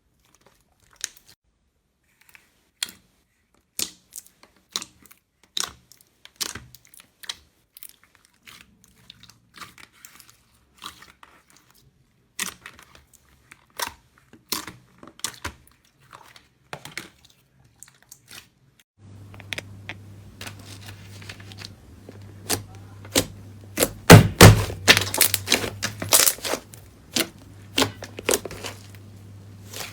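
Slime being squeezed and poked by hand, making a run of sharp clicks, pops and crackles. About two-thirds of the way in a steady low hum starts, and a burst of louder crunching and crackling follows.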